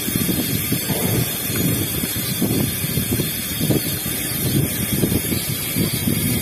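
Wind buffeting the microphone of a camera riding along on a bicycle: an uneven, gusty low rumble over a steady hiss.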